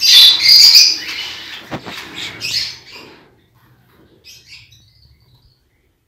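Hand stirring a dry bird seed mix in a plastic tub: grains rustling and pattering, loudest in the first second and dying away about three and a half seconds in.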